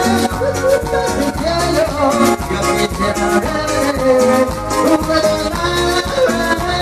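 A live band playing Latin tropical dance music, with a steady percussion beat under melodic lines.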